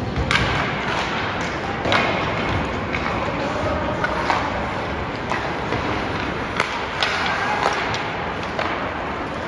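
Ice hockey play on an indoor rink: sharp clacks of sticks and puck, with a few louder knocks about two seconds in and again later, over steady scraping of skates on the ice and rink noise.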